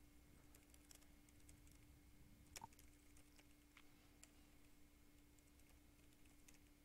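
Faint typing on a computer keyboard: scattered, irregular keystrokes, with one louder click about two and a half seconds in, over a faint steady electrical hum.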